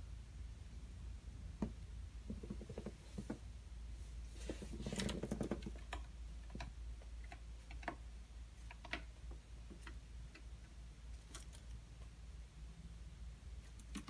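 Faint, scattered ticks and taps of a small sparrow's claws and beak as it hops and moves about on a wooden windowsill, with a louder rustle about five seconds in, over a low steady room hum.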